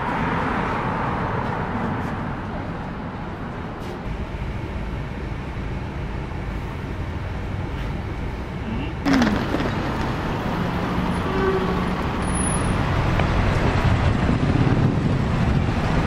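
Road traffic on a busy city street: a steady rumble of cars and buses, with an abrupt change in the sound about nine seconds in.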